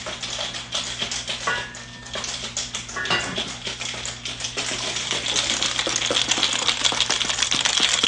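Ice cubes rattling inside a cocktail shaker being shaken, a fast, dense, continuous clatter that eases briefly near two seconds in.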